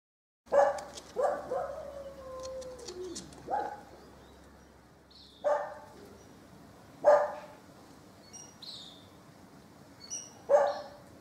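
A lone dog barking in single spaced barks, about six of them, starting about half a second in; one early bark trails off into a long falling whine. It is the barking of a dog left home alone, which is taken to be bored, lonely and frustrated and suffering from anxiety and separation distress.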